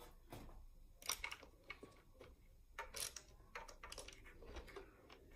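Faint, scattered clicks and rustles of a person standing up and moving about.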